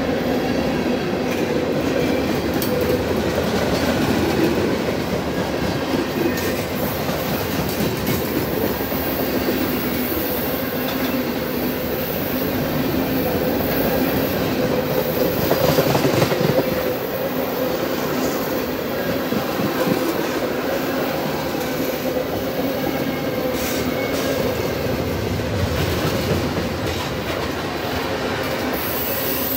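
CSX freight train rolling past at a steady speed, its wheels clattering on the rails, with a faint steady whine running under the noise. It swells a little about halfway through.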